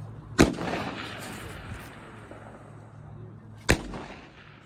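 Two loud rifle shots about three seconds apart, each followed by a long rolling echo, over a low steady hum.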